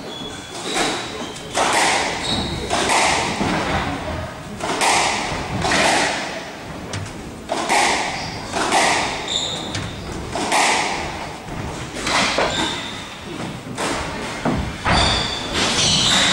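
Squash rally in a glass court: the rubber ball cracking off the rackets and thudding against the front wall in a steady run of hits, about one to two a second, with the hall echoing. Short high squeaks of shoes on the wooden court floor come between the hits.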